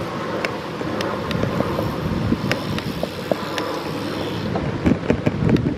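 Wind buffeting the microphone and the rumble of a bicycle rolling along a paved path, with scattered light clicks and knocks, growing louder and busier near the end.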